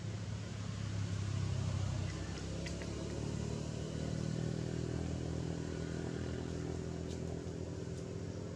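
A motor vehicle's engine running steadily, a low drone that shifts slightly in pitch about four seconds in.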